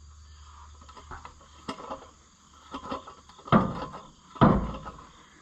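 A few light metal clicks and clanks, then two heavy knocks about a second apart, from working the bent exhaust pipe of an Oliver 1450 tractor back toward shape.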